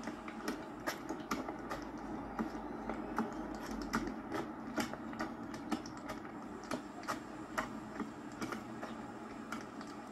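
Fire crackling: irregular sharp crackles and pops, several a second, over a steady low rush.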